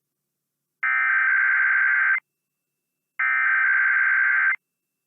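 Emergency Alert System SAME header: raspy, buzzing digital data bursts, each about a second and a half long, heard twice with about a second of silence between them. These bursts encode the alert's originator, event type, area and timing at the start of an EAS test.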